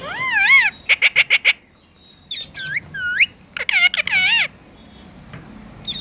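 Male rose-ringed parakeet (Indian ringneck) calling loudly. It gives a warbling call, a quick run of about six short chirps, then rising whistle-like calls and more warbling calls.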